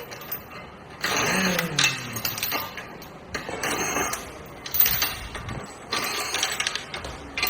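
Bursts of metallic ratcheting and clanking from hand tools working on a tractor's wheel nuts, about four spells of a second or so each with short pauses between.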